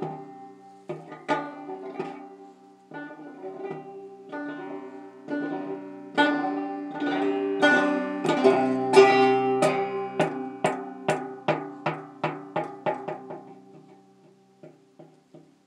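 Ibanez five-string banjo being picked: single notes and chords that build to a busier, louder passage around the middle, then a run of quick repeated notes that thins out to a few soft notes near the end.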